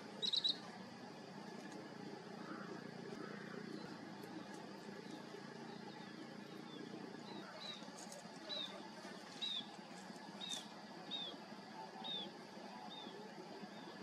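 Short high-pitched bird chirps: a quick triple chirp at the start, then a run of single down-slurred chirps about once a second through the second half, over a steady faint background hiss.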